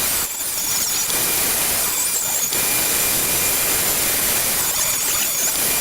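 Table saw running and ripping a wooden table leg down to size, a steady loud noise with a high whine that wavers as the blade works through the wood.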